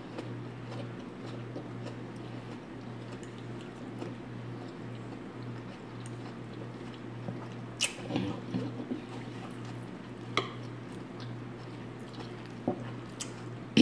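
A person chewing a mouthful of stir-fried vegetables with the mouth closed, soft and wet, over a steady low hum. A few short sharp clicks or smacks come in the second half.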